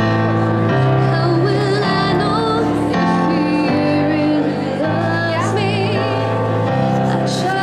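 Background music: a slow song in which a woman sings a wavering melody over held chords that change about once a second.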